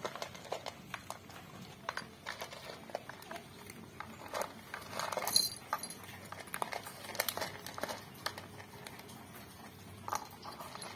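Two cats crunching dry kibble from a plastic double bowl: irregular small crunches and clicks, with a louder burst a little after five seconds in.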